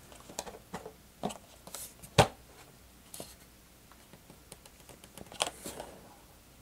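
Small clicks and taps of plastic parts being handled while fitting the wing struts between the foam wings of an E-Flite PT-17 model biplane, with one sharp, louder click about two seconds in and another later on.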